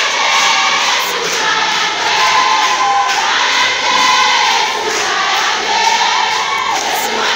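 A group of voices singing a praise song together, choir-style.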